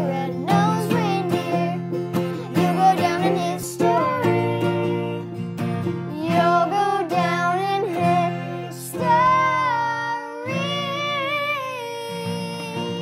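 A man and a young girl singing together, accompanied by a strummed acoustic guitar and a ukulele. Near the end they hold one long final note.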